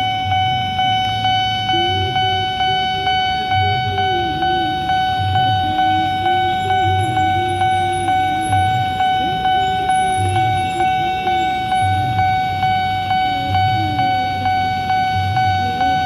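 Railway level-crossing warning bell ringing in a steady, even rhythm of about two and a half strikes a second. Each strike is a single bright tone that dies away before the next, warning that a train is approaching.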